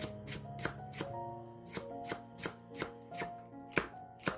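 Chef's knife slicing green onion and then cheongyang chili peppers into thin rounds on a wooden cutting board, an even run of about three chops a second. One chop a little before the end is louder than the rest.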